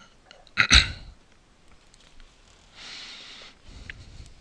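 A person's short, sudden vocal sound close to the microphone, like a hiccup, about half a second in, followed about two seconds later by a softer breath.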